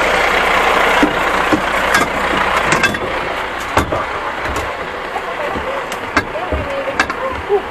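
Fire engine's diesel engine running at idle, with several knocks and clicks as the crew climbs into the cab.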